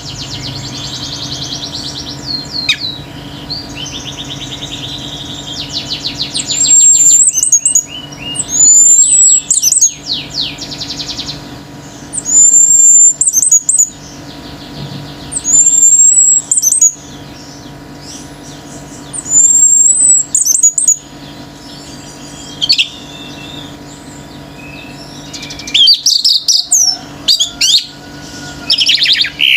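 Orange-headed thrush (anis merah) singing hard: loud, high, sweeping whistled phrases repeated every three or four seconds, broken up by rapid trills and chattering, with other birds calling and trilling in between.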